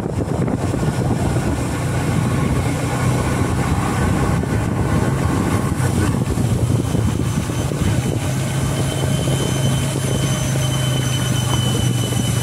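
Motorcycle engine running at a steady pitch while riding, under a continuous rushing noise.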